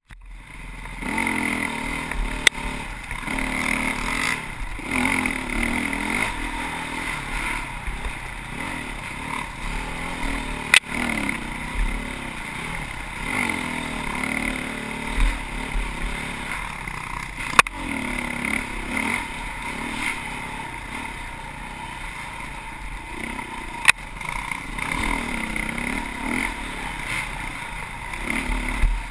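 Dirt bike engine running under the rider on a rough trail, its revs rising and falling over and over as the throttle is opened and closed. Four sharp single knocks stand out over it.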